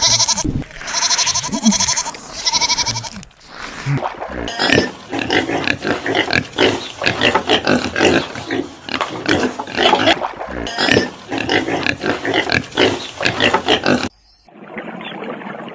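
A few quavering bleats, then a pig grunting and squealing in quick repeated bursts for about ten seconds. The sound cuts off abruptly near the end and a different, duller recording begins.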